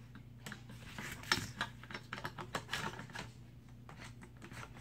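Light irregular metal clicks and scrapes as an ambidextrous AR-15 charging handle is worked into the upper receiver by hand. The loudest click comes about a second in, and the clicks thin out after about three and a half seconds.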